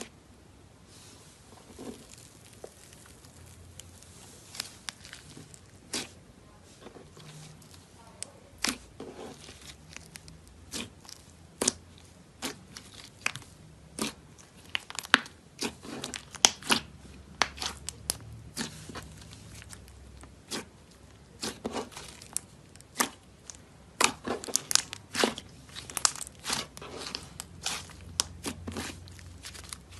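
Thick white slime with a block of pink clay worked into it, poked and then kneaded and stretched by hand: a run of sharp sticky clicks and pops, few at first and much denser in the second half.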